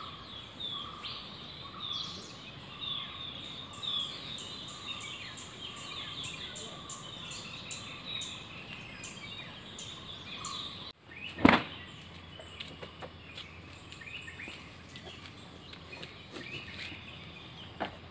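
Birds chirping in forest, short high calls repeating about once a second over a faint background hiss. About eleven seconds in the birdsong breaks off and a single sharp knock follows, then only quieter ambience with a few faint ticks.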